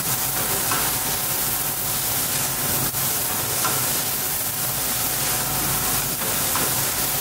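Coffee roaster's cooling tray running: a steady hiss from the fan, with freshly roasted beans being swept round by the stirring arms and a few faint clicks.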